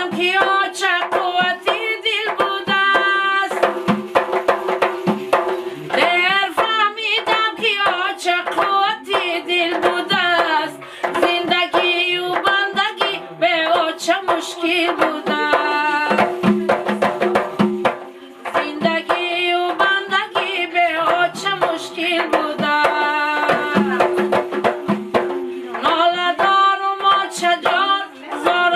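A woman sings with a wavering vibrato while two large frame drums are struck by hand in a quick, steady rhythm.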